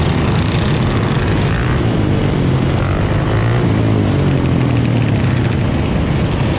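A pack of dirt bike engines running together in a dense, steady mix, some pitches gliding up and down a little as riders change throttle.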